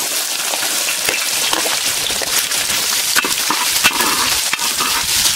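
Chopped shallots dropped into hot oil in a wide metal pan, sizzling as they fry. A perforated metal ladle scrapes and clicks against the pan as it spreads them.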